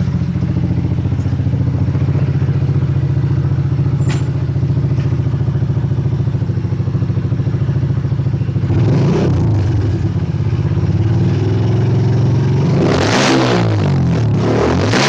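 Dirt bike engine idling steadily through its custom, freshly repacked muffler, revved up twice: a short blip about nine seconds in and a longer run of revs near the end.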